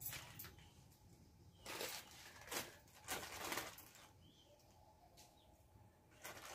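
Small plastic spice packets crinkling and rustling as they are handled, in several short bursts.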